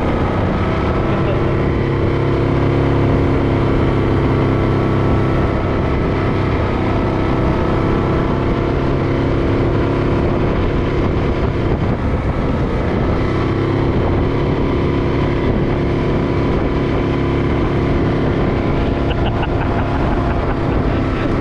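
Vehicle engine running steadily, heard from on board while driving an off-road trail. Its note eases slightly about halfway through and then comes back up.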